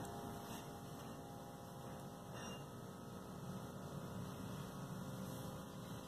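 Faint, steady electrical hum.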